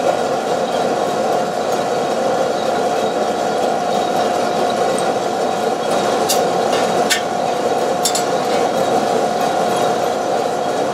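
Two-drum Probat sample coffee roaster running: the drum turns with the beans tumbling inside and the motor and fan hum steadily, during the drying stage of the roast. A few light metallic clinks come about six to eight seconds in.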